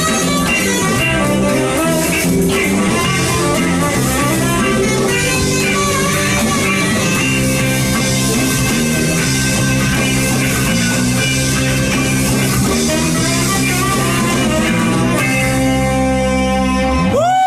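Live band of electric guitar, bass guitar and drum kit playing an instrumental passage with a steady bass line. Near the end it settles on a held chord, then a quick swooping bend in pitch closes it.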